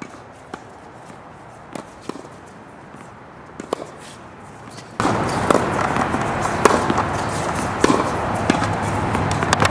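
Sharp knocks of tennis balls being struck and bouncing on a hard court, a few sparse ones at first. About five seconds in, the background noise steps up sharply and the knocks come more often.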